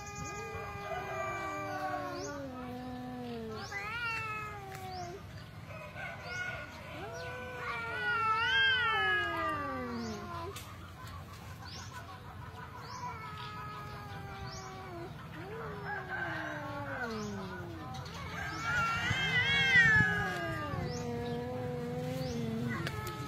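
Two tabby cats caterwauling at each other in a face-off: long drawn-out yowls that mostly slide down in pitch, some wavering up and down. This is threat yowling before a possible fight. The loudest wails come about a third of the way in and again near the end.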